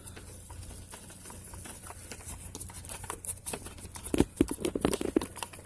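A screwdriver driving a Torx screw into a car door handle's mounting: a run of small clicks and taps, with louder knocks and handling thuds from about four seconds in.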